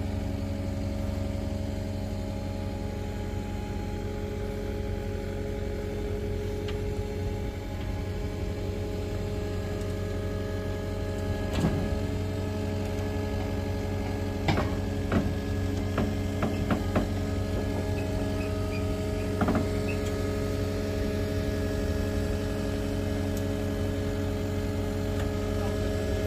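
Skid steer loader's engine running steadily, with a few sharp metal clanks about twelve seconds in, several more a few seconds later, and one near twenty seconds.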